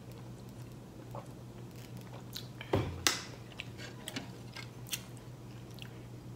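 Close-miked eating and drinking mouth sounds: scattered small clicks, with two louder ones about three seconds in. Near the end, light taps of a metal fork on a cut-glass dish. A low steady hum runs underneath.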